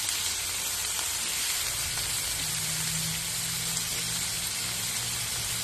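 Ribeye steaks sizzling on a hot propane flat-top griddle, a steady frying hiss. A low steady hum comes in about two seconds in.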